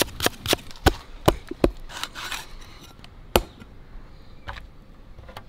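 A knife striking a wooden chopping block as an onion is sliced: several quick, sharp knocks in the first couple of seconds, then a single knock and a few fainter ones further apart.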